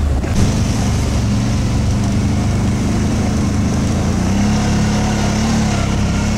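Quad bike (ATV) engine running steadily, its pitch rising a little for a while about four seconds in and then settling.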